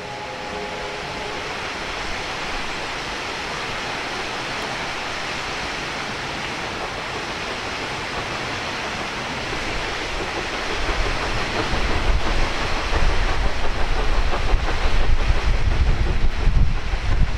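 USATC S160 steam locomotive approaching with a passenger train: a short whistle that ends about a second in, then the sound of the locomotive working, which grows louder with a heavy, uneven low rumble from about ten seconds in.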